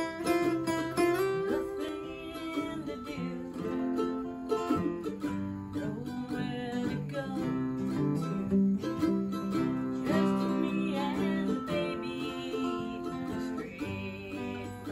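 A mandolin being picked, playing a melody of quick plucked notes with chords.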